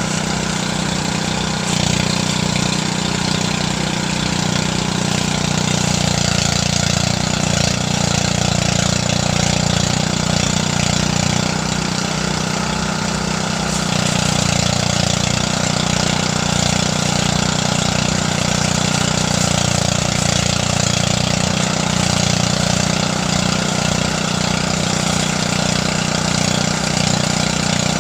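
Engine-driven rice thresher running steadily: a constant low engine hum with an even rushing hiss over it.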